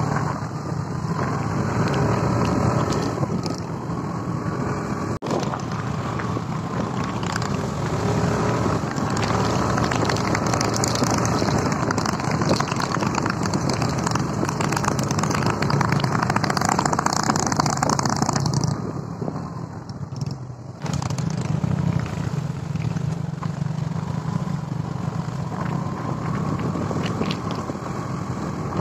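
Royal Enfield motorcycle engine running at road speed on a dirt and gravel track, with wind and tyre noise. The sound eases off for a couple of seconds about two-thirds of the way through, then picks up again.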